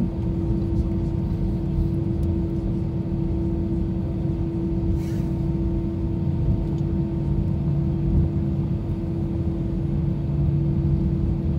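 Airliner cabin sound while taxiing: the jet engines' steady hum with one constant tone over a low rumble, the level even throughout.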